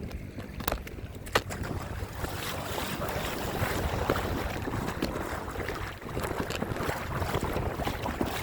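Wind buffeting the microphone over lake water lapping and splashing, with two sharp clicks in the first second and a half and scattered small ticks.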